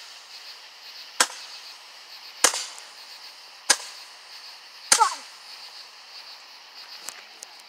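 Firework going off in four sharp bangs about a second and a quarter apart, the last one doubled, followed by a few faint crackles near the end.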